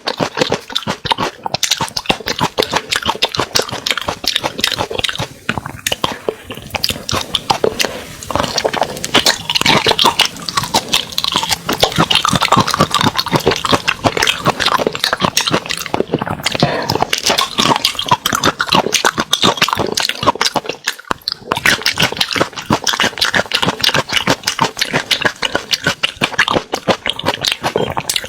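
Close-miked eating sounds: rapid wet chewing, smacking and slurping of spicy seafood, dense and continuous with a few brief pauses.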